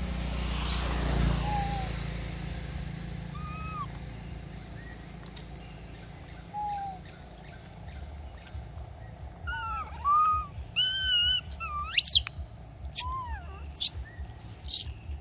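Short whistled and chirping animal calls, a few at first and then several in quick succession in the second half, ending with some sharp high sweeping chirps. A steady thin high tone lies under them.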